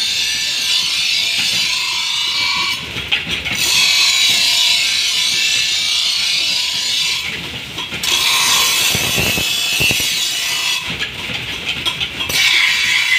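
Steel sword blade being ground on a motor-driven grinding wheel: a steady, high hissing rasp of the edge against the abrasive wheel over the wheel's running whine. The rasp breaks off three times, each for about a second, as the blade is lifted off and set back on the wheel.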